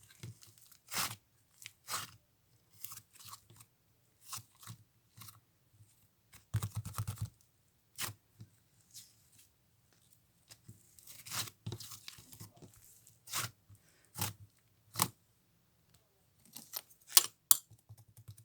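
Hands squishing and stretching gelato slime, giving irregular sharp wet pops and crackles, with a denser run of crackling about seven seconds in.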